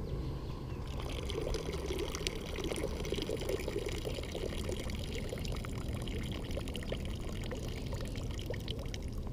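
A thin stream of water poured from a bag, trickling and splashing into shallow river water. It starts about a second in and keeps running steadily.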